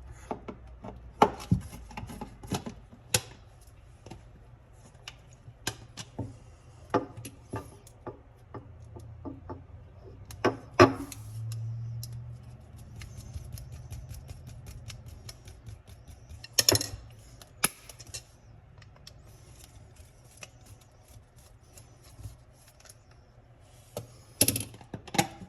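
Irregular sharp clicks and light taps of small metal hardware and hand tools being handled, a few louder knocks among them.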